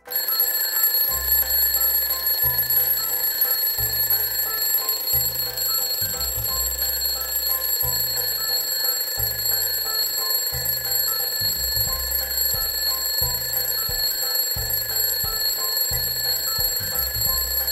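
Battery-powered twin-bell alarm clock ringing: its hammer beats rapidly between the two metal bells in a loud, continuous ring that starts suddenly and goes on without a break.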